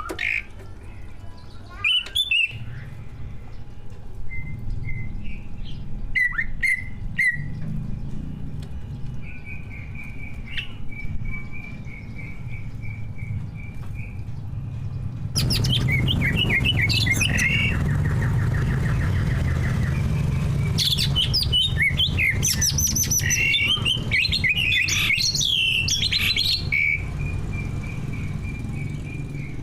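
Greater green leafbird (cucak ijo) singing in vigorous, varied song: chirps and a held whistle, then from about halfway a louder, denser run of notes with a rapid buzzy trill.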